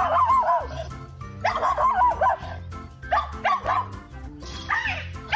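Music with a steady bass beat, and over it a dog giving four short, wavering barking calls, about one every second and a half.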